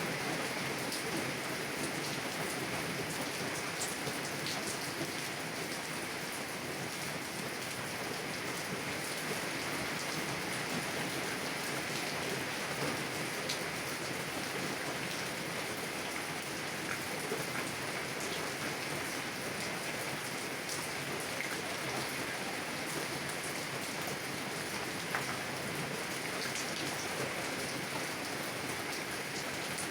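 Heavy rain falling steadily on a car's window and body, with scattered individual drops ticking against the glass.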